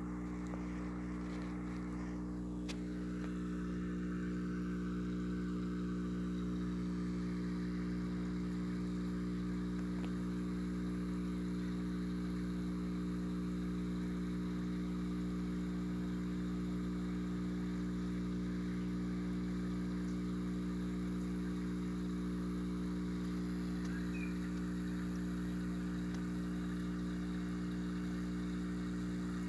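Aquarium air pump driving a sponge filter: a steady low electrical hum with a faint wash of bubbling, and a few light handling knocks in the first couple of seconds.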